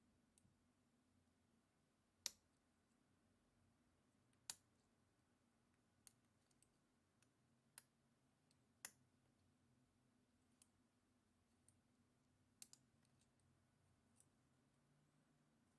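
Lock-picking tools clicking and ticking inside the keyway of an all-brass padlock as it is being picked. There are about a dozen sharp, separate clicks at irregular spacing, a few of them louder than the rest.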